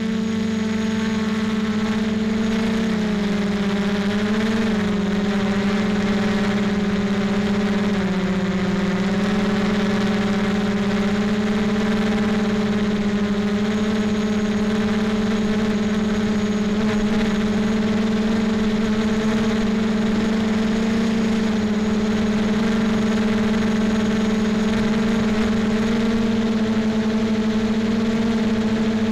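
Motor and propeller of a radio-controlled camera aircraft in flight: a steady, loud whine that dips slightly in pitch a few times as the throttle changes.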